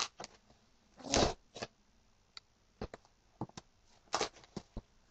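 Hands struggling to open a sealed cardboard mailer envelope: a string of short paper rustles and scrapes, the longest about a second in.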